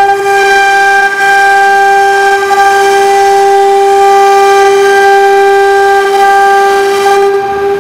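CNC wood router's spindle whining at a steady high pitch while its bit engraves letters into a wood board, with a hiss of cutting under the whine that thins near the end.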